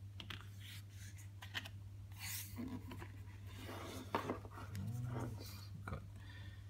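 Glossy photobook paper being handled: a page turned and a large folded photo sheet lifted and flipped, rustling and crinkling in several irregular bursts with small clicks, over a faint steady low hum.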